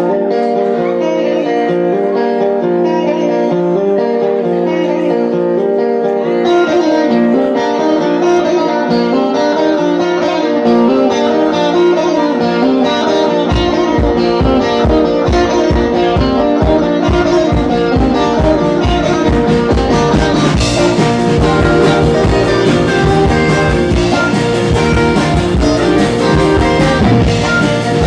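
Live rock band playing the instrumental opening of a song, led by guitar. Bass and drums come in about halfway through, and the beat carries on from there.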